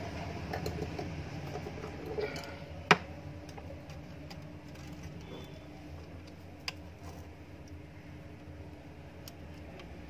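Light clicks and ticks of a carbon brush and its holder parts being fitted into a mixer grinder motor with a screwdriver, with one sharp click about three seconds in and a smaller one near seven seconds.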